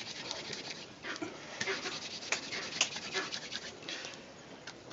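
Hand fire drill: a wooden stick spun back and forth between the palms, grinding in a notch of a wooden hearth board. A dry rasping scrape of wood on wood and palms rubbing on the shaft, made of many short uneven strokes.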